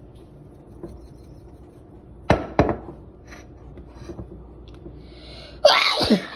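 Handling sounds on a kitchen counter: two sharp knocks a third of a second apart, then near the end a loud rustling scrape as the cardboard pretzel box is handled.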